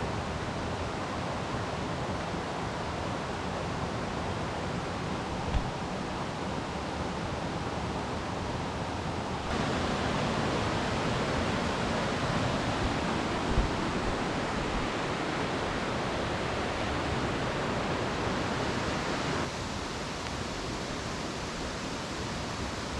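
Steady rush of running water, louder for a stretch in the middle that starts and stops abruptly, with two brief low thumps.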